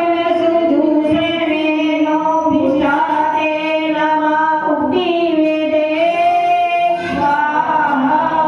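A woman singing a Hindu devotional hymn into a microphone, in long held notes that glide between pitches.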